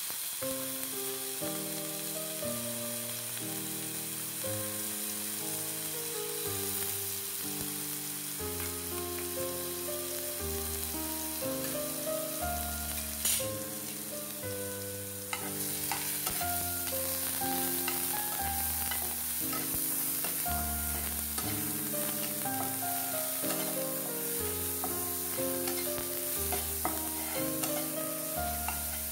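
Grated bottle gourd sizzling as it fries in ghee in an iron pan, with a spatula stirring it near the end and a single sharp click about halfway through. Soft background music with a melody and bass notes plays underneath.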